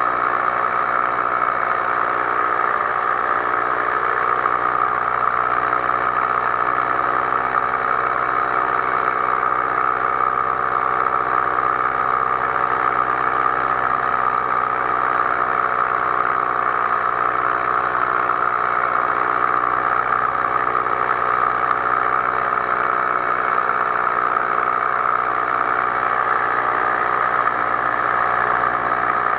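Powered paraglider's engine and propeller running steadily at an even throttle, the pitch holding flat throughout.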